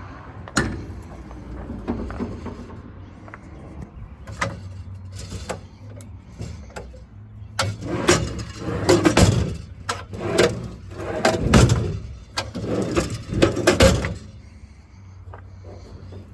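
Metal knocks and rattles from the toolbox compartment doors of a service truck body being handled, in a quick series in the middle, over a low steady hum.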